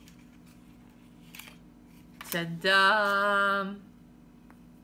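A woman's voice exclaiming a drawn-out, sing-song "Ta-da!" about two and a half seconds in, after a quiet stretch with a faint brief rustle.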